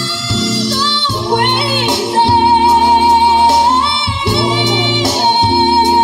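Soul song playing loud through a DIY passive line array and dual-18-inch passive subwoofer: a woman sings long held notes over a steady bass line.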